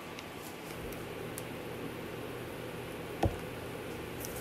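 Steady low hiss and hum of a quiet kitchen with a few faint ticks, and one short knock about three seconds in as a small carton of whipping cream is set down on the table.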